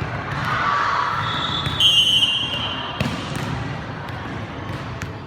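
Indoor volleyball rally: sharp thuds of the ball being hit and bouncing, high squeaks near two seconds in, over the murmur of spectators in the hall.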